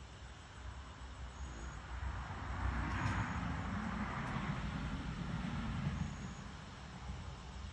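A passing motor vehicle: a low rumble with tyre-like hiss that swells about two seconds in, peaks around three seconds and fades after about six.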